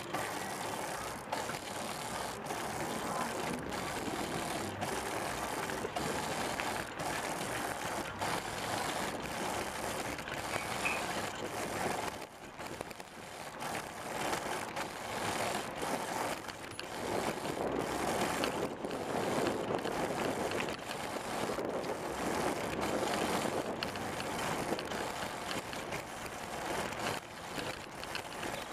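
Hand-powered 'Pursuit' tadpole trike rolling along tarmac: a steady rush of tyre and air noise, broken by brief dips about once a second, with the hand drive mechanism working underneath.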